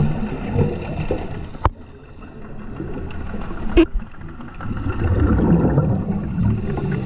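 Scuba diver breathing underwater on an open-circuit regulator: exhaled bubbles rumble in bursts, with a quieter stretch between them. Two sharp clicks come about a second and a half in and again about two seconds later.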